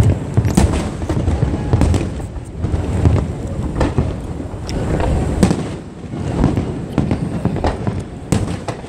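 Large aerial fireworks display: many shells bursting in rapid succession, sharp bangs over a continuous low rumble of booms.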